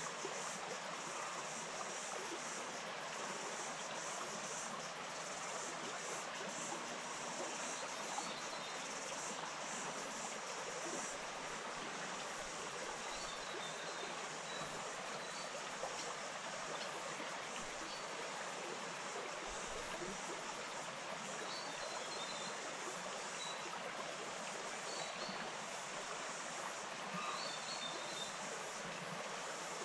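Small stream running steadily, an even rush of water, with faint short high chirps now and then.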